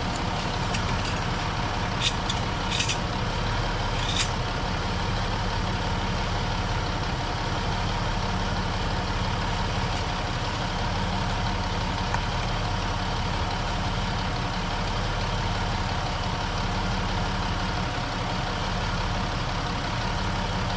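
2006 Dodge Ram 1500's engine idling steadily in neutral, warmed up, with a few short sharp clicks two to four seconds in.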